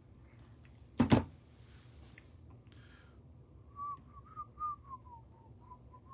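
Two sharp clicks in quick succession, then a short run of about ten whistled notes near one pitch, drifting slightly lower toward the end.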